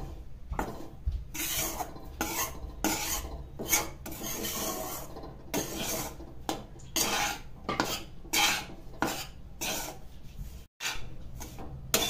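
Metal spatula scraping and stirring wheat flour in a metal kadhai, in repeated rasping strokes about two a second, as the flour is dry-roasted in ghee and kept moving so it doesn't stick and scorch.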